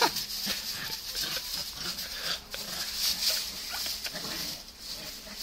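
Dogs fighting and scuffling in mud, with short yelps and growls; a sharp yelp comes right at the start.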